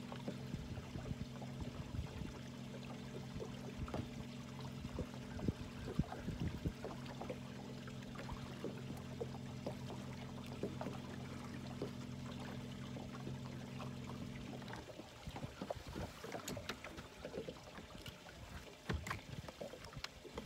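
Bow-mounted electric trolling motor humming steadily, then switching off about three quarters of the way through. Water lapping and scattered small knocks against the boat follow.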